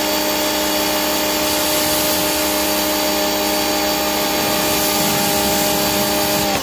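PowRyte 3800R electric pressure washer running under load with the trigger held: a steady motor-and-pump hum over the hiss of water spraying from the 40-degree tip.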